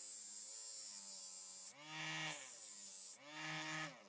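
Homemade angle grinder driven by a 12-volt 775 DC motor, grinding an edge sharp. A steady grinding hiss runs over the motor's whine, which rises and falls in pitch twice as the pressure changes, then winds down near the end.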